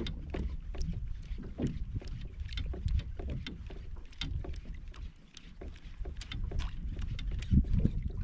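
Wind buffeting the microphone and water lapping against a kayak's hull, with irregular small knocks and splashes scattered throughout and a brief lull about five seconds in.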